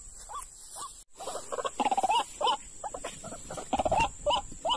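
White-breasted waterhen calling: a rapid series of short, arched notes, several a second. The calls come thickest after a brief cut-out in the sound about a second in.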